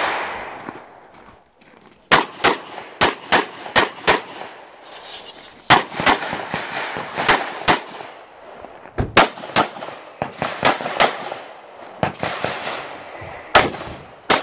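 Red-dot-sighted semi-automatic pistol firing a stage, starting about two seconds in: about twenty shots in quick groups of two to four, roughly a third of a second apart, with short pauses of a second or so between groups.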